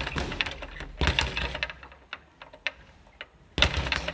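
Leather speed bag being punched in a simple beginner's rhythm, rattling against its rebound board in quick runs of clicks. The strikes thin out to a few scattered knocks about halfway through, then pick up again near the end.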